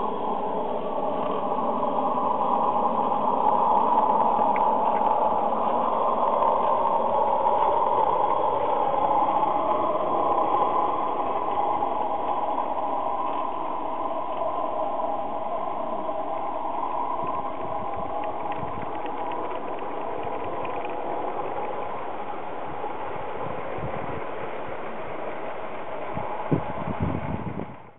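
Live-steam garden-railway model of a Welsh Highland Railway Garrett working hard uphill with a train, giving a steady hiss and running noise that slowly fades as the wagons roll past. A low thump comes near the end.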